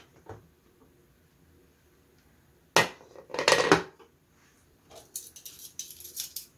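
Aluminium pressure cooker lid being opened: a sharp metal click about three seconds in, then a clatter as the lid is worked loose and lifted off, followed by lighter high-pitched scraping and clinks near the end.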